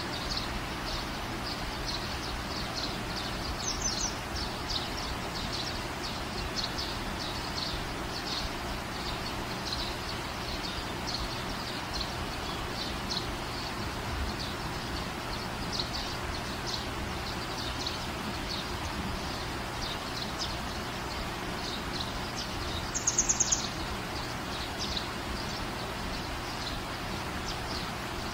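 Small birds chirping over and over against a steady outdoor background hum, with a brief louder run of four quick chirps about 23 seconds in.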